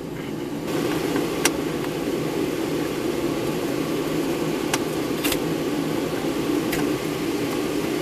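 Steady running hum inside a BMW E46's cabin, with a few light clicks and knocks as hands work the shift boot and foam out around the gear lever.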